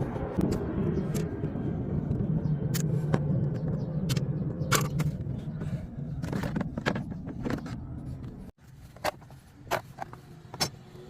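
BMW 535i E34's straight-six engine running at a steady idle, with scattered sharp clicks over it. About eight and a half seconds in, the engine sound cuts off abruptly, leaving a quieter background with a few sharp clicks.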